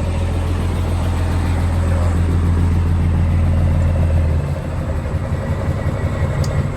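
Detroit Diesel Series 60 engine of a 2003 Freightliner Columbia truck idling with a steady low drone. About four seconds in, the drone changes to a weaker, uneven rumble.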